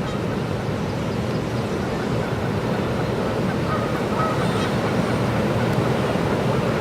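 Geese honking a few times, faintly, over a steady rushing noise of wind and water.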